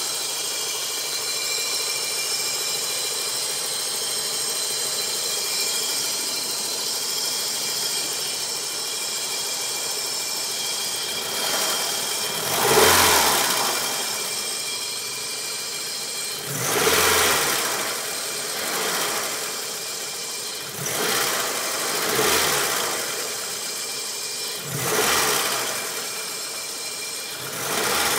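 A car engine idling steadily, then revved briefly five or six times, each rev swelling and dropping back to idle about every four seconds.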